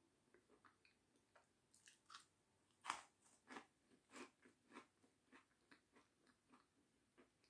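A person biting into a dry meringue and chewing it: crisp crunches, the loudest about three seconds in, then repeating about twice a second and growing softer toward the end.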